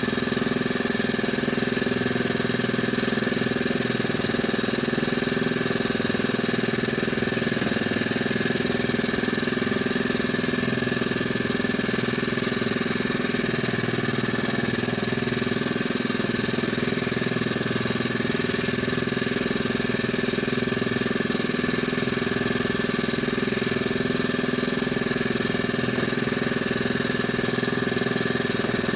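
Small engine aboard a fishing boat running steadily at idle, its pitch and level unchanging.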